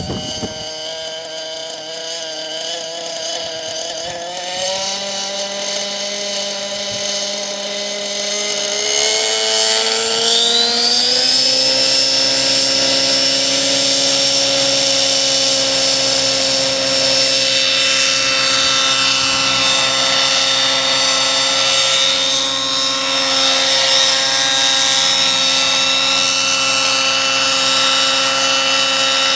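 Nitro glow engine and rotor of a T-Rex 600 RC helicopter spooling up on the ground. The pitch rises around four seconds in and climbs steeply again between about nine and twelve seconds, then holds a steady, high headspeed as the helicopter lifts into a low hover.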